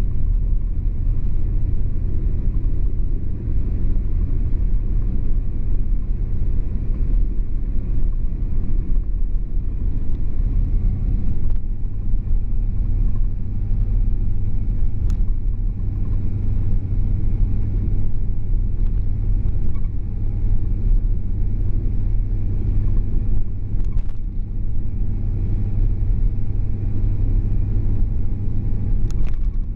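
Low, steady road and engine rumble of a car being driven, heard from inside the cabin, with a faint steady whine joining about a third of the way in.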